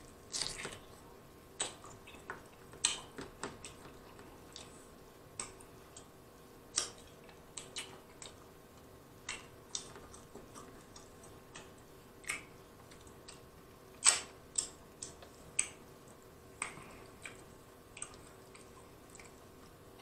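A person chewing sauced ribs, with irregular wet smacks and clicks from the mouth, the sharpest about two-thirds of the way in.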